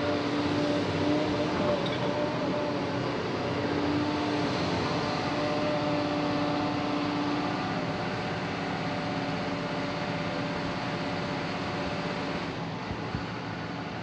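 SANY crawler excavator's diesel engine running under load, with a pitched hydraulic whine that shifts as the boom and bucket move. The sound eases a little in the last few seconds.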